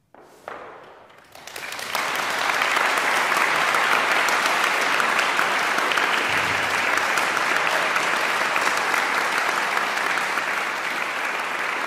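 Audience applause at the close of a performance: a few first claps, then swelling within about two seconds into steady applause that eases slightly near the end.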